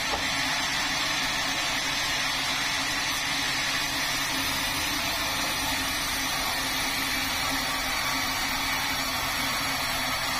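Sawmill machinery running steadily: a continuous motor drone with an even hiss that holds at the same level throughout.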